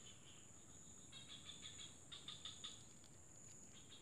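Near silence with faint insect chirping: a steady thin high whine, with two short runs of rapid chirps about a second and two seconds in.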